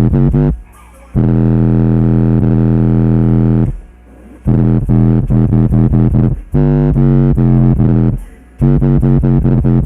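Bass-heavy electronic dubstep-style music played loud through a 12-inch Planet Audio car-audio subwoofer. It alternates rapid stuttering notes with long held notes and cuts out briefly three times.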